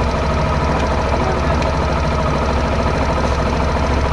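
Suzuki Access 125 scooter engine idling steadily, with a 'khit-khit' rattle from the belt-drive housing. The mechanic puts it down to worn variator rollers letting the drive belt run loose and strike the inside of the casing.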